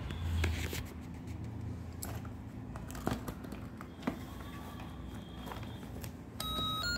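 Paper pages of a colouring book being handled and turned by hand, with soft rustling and a few sharp clicks. About six and a half seconds in, a simple electronic beeping melody starts.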